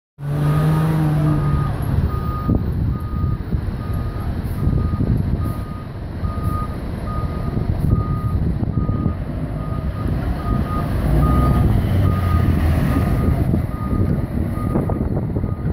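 Fire engine backing up: its reversing alarm beeps at an even pace over the steady rumble of its diesel engine.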